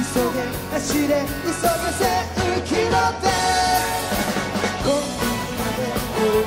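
Live pop-rock band playing a song: a male lead vocal sung into a handheld mic over drum kit, electric guitars and bass.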